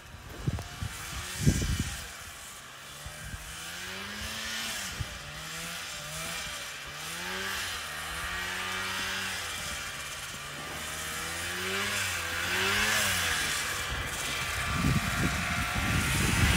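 A vintage 1975 John Deere snowmobile's two-stroke engine rising and falling in pitch as the rider throttles on and off across the field. A couple of sharp bumps come in the first two seconds, and a loud rumbling noise builds near the end.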